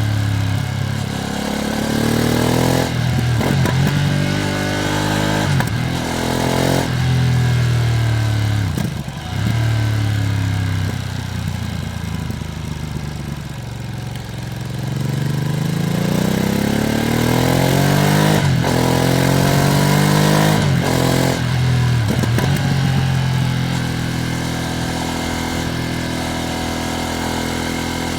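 Ducati Streetfighter V2S's V-twin engine pulling through the gears, the pitch rising and then dropping at each upshift. It eases off and falls in the middle, pulls up through two more gears, then settles to a steady cruise near the end. The bike is ridden gently while it is being run in.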